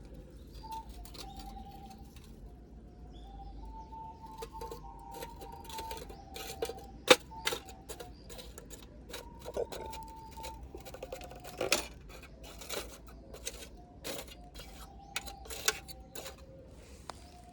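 A slow melody played on alto recorders, with steady held notes stepping up and down. Irregular sharp clicks and knocks run over it, the loudest about seven seconds in and again near twelve seconds.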